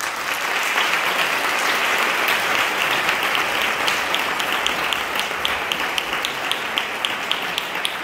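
Theatre audience applauding loudly at the end of a scene. In the second half, separate claps stand out at an even pace of about three a second.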